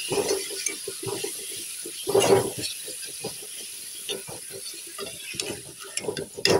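Steel spoon scraping and knocking against a steel pot and plate as cooked rice is scooped out and served, in a run of irregular small clinks and scrapes. A louder scrape comes about two seconds in, and a sharp knock near the end.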